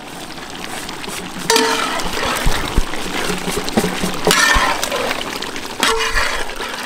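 Beef and masala gravy sizzling and bubbling in a large cooking pot. The sound grows louder in sudden steps a few times.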